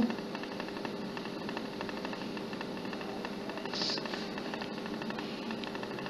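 Steady background hum and hiss, with a few faint steady tones, and one brief soft hiss about four seconds in.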